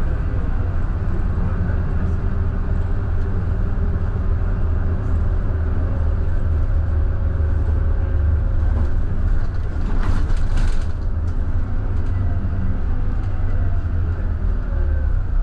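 Scania K320IB bus's 9-litre five-cylinder diesel running under way, a steady low drone with a faint whine that slowly rises and falls in pitch. A brief hiss comes about ten seconds in.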